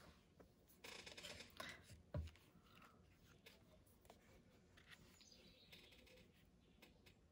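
Faint handling of paper and craft supplies on a cutting mat: a short rustle about a second in and a soft knock just after two seconds, with a few tiny clicks.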